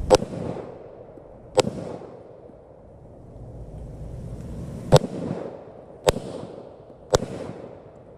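Five single shots from a 9mm Glock pistol, fired at uneven intervals, each a sharp crack with a short echo.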